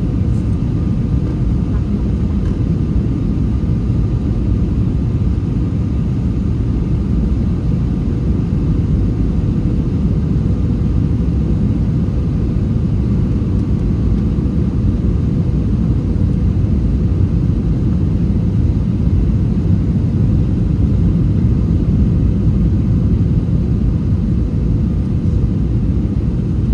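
Steady low rumble of an Airbus A321 airliner in flight on approach, heard as cabin noise, with a faint steady tone running through it.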